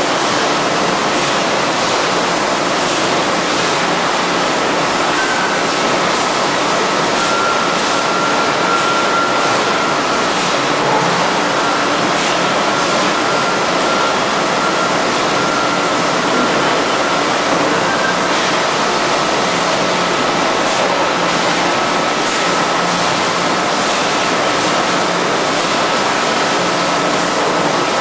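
Steady, loud machine noise of a 5-gallon bottle handling and bottling line: a dense, even hiss with a faint high whine and scattered faint ticks and clicks.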